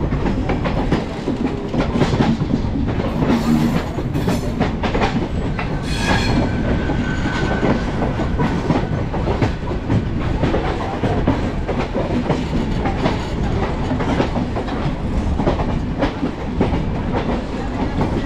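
Indian Railways express passenger train running, its coach wheels clattering steadily over the rail joints with a continuous rumble.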